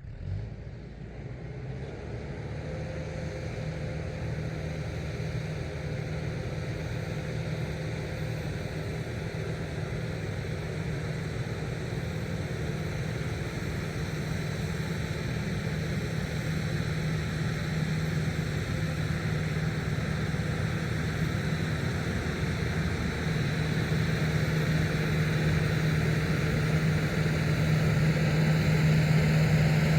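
Tractor engine running steadily with a rotary tiller working, a continuous drone that grows gradually louder.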